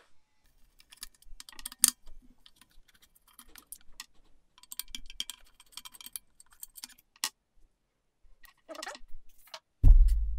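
Screwdriver and fittings clicking and scraping as the chain guard and chain catcher are unscrewed from a motorcycle swing arm: scattered light clicks and small scrapes, with a sharp click about two seconds in. Near the end there is one loud, dull thump.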